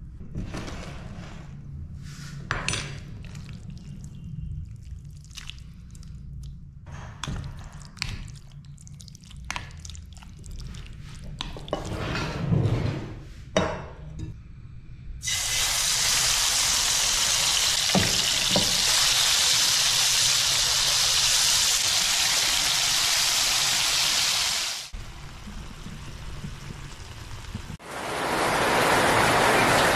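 A kitchen knife chopping raw chicken on a wooden cutting board, a series of uneven knocks. About halfway through, a loud, steady sizzle from the frying pan starts and lasts about ten seconds before cutting off. Steady rain takes over near the end.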